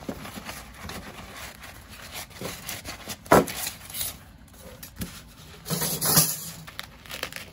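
Black fabric stove pouch being handled and laid out, its cloth rustling and rubbing, with scattered clicks and a sharp knock a little over three seconds in.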